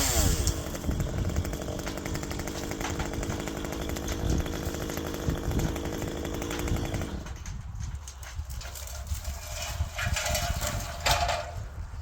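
Chainsaw engine running steadily at low speed, then dying away about seven seconds in.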